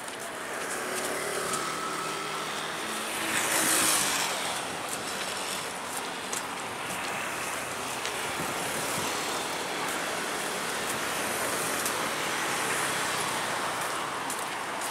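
Road traffic, cars and motor scooters driving past on a multi-lane street, as a steady rush of tyre and engine noise. One vehicle passing close about three to four seconds in is the loudest moment.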